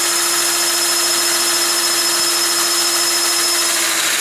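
Battery-powered hydraulic crimper (BZ400, 18-volt) running steadily on the trigger, its motor-driven pump closing the crimping dies, with a constant hum under a high whine.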